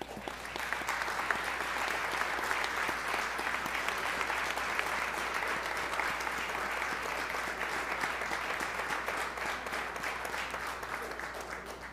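Audience applauding in a council chamber: a round of steady clapping that starts all at once and dies away near the end.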